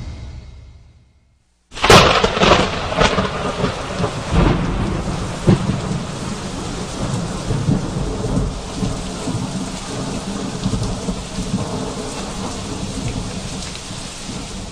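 Thunderstorm: after a brief silence, a sudden loud thunderclap about two seconds in, then rolling thunder over steady rain, slowly fading toward the end.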